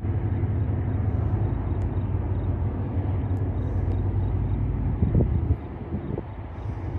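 Diesel freight locomotives rumbling low and steady as the train works past. The rumble drops off sharply about five and a half seconds in.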